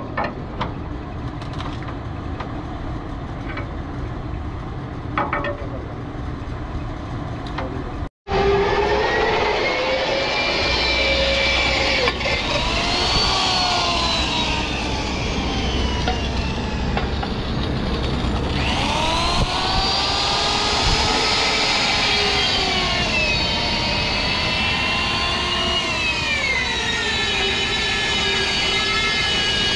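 Heavy electric drill boring through a steel truck chassis rail. The motor's whine sags in pitch as the bit loads up in the steel and climbs again as it eases off, several times over. Before it there is a steady low hum with a few sharp clicks.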